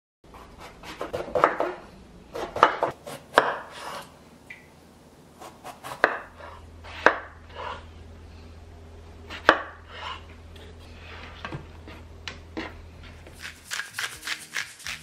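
Kitchen knife chopping eggplant on a bamboo cutting board: irregular sharp knocks of the blade meeting the board, coming closer together near the end.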